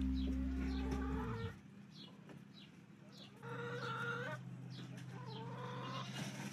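Rooster crowing three times, each crow about a second long, one near the start, one around three and a half seconds in and one around five seconds in. A low held tone stops about one and a half seconds in.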